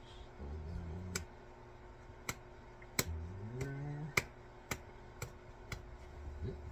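A series of about seven sharp, short taps at uneven intervals, with a low hum twice in between, the second one rising in pitch.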